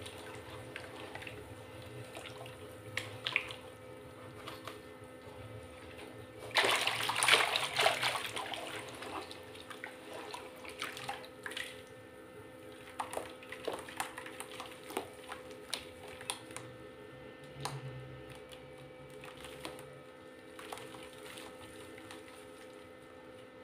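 Hands squeezing and stirring soft, watery mud slurry in a plastic basin, with wet squelching and sloshing. There is a loud burst of splashing about a third of the way in, then scattered squelches and drips as handfuls are lifted and let fall back.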